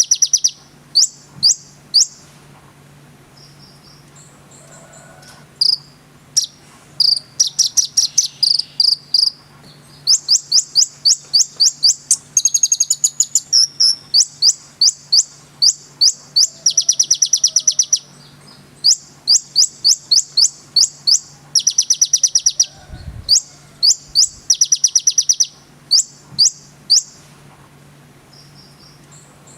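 Brown-throated sunbird (konin) singing: rapid runs of sharp, high chips and buzzy trills in bursts separated by short pauses, over a faint steady hum.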